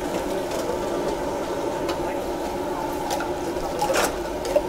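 Vada fritters deep-frying in a wide iron kadai of hot oil: a steady bubbling sizzle, with a few light clicks, the loudest about four seconds in.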